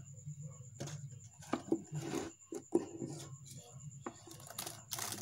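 Plastic containers being handled on a tabletop: a series of light knocks and short scraping rustles. A steady low hum and a faint high whine run underneath.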